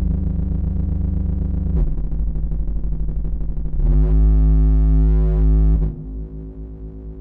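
Pittsburgh Modular Cell 48 System 1 modular synthesizer playing sustained, distorted buzzing tones that change every couple of seconds. A low drone turns into a pulsing texture, a louder buzzing tone with a wavering upper part comes in about four seconds in, and near six seconds it drops away with a downward pitch sweep into a quieter steady tone.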